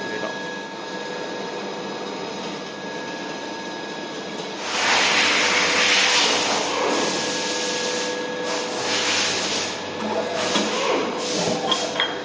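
Kurashiki Kikai CMN-5C horizontal boring and milling machine running: a steady hum with fixed whining tones, joined about five seconds in by a louder hiss, with a few short knocks near the end.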